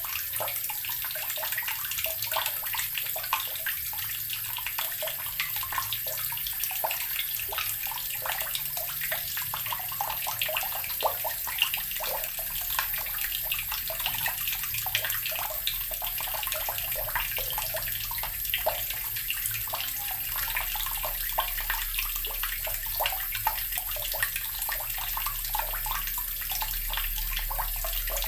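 Water running steadily from a tap, with a dense, even patter of small splashes.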